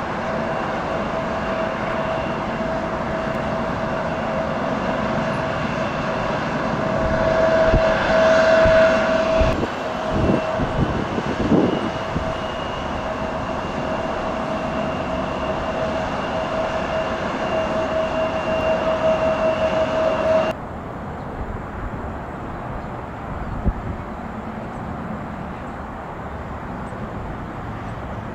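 Embraer E175's GE CF34 turbofan engines running with a steady whine. About twenty seconds in it cuts off abruptly to a much quieter background of wind noise.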